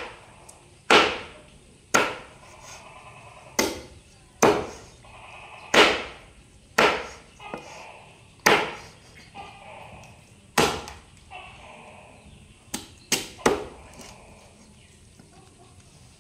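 A cleaver chopping cooked goose meat on a round wooden chopping block: about a dozen sharp chops at an irregular pace, the last three in quick succession shortly before the end.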